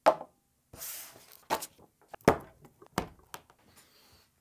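A handful of knocks and thunks from things being put away on a wooden desk, a laptop lid shut and a folding stand laid down, with a brief rustle about a second in; the loudest thunk comes a little past two seconds.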